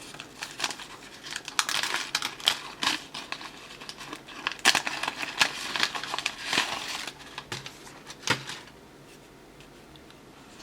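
Hockey trading cards being handled and flipped through, a run of irregular paper-and-card rustling and crinkling with sharp clicks that dies away after about eight and a half seconds.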